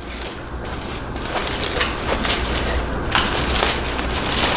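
Gift wrapping paper being torn open and crumpled by hand: continuous crinkling and rustling with many sharp crackles, growing a little louder toward the end.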